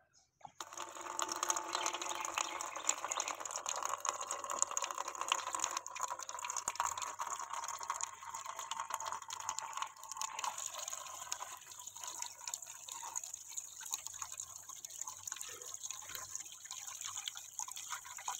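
A stream of water pouring and splashing into a metal basin full of old forge blower parts, filling it. It starts about half a second in and runs steadily, growing slightly thinner partway through.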